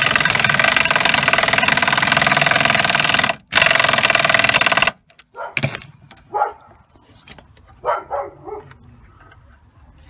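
Air tool with a 14 mm socket running the seat-belt anchor bolt in: a loud, steady run of about three seconds, a brief stop, then a second run of about a second and a half. Scattered light clicks and knocks from handling follow.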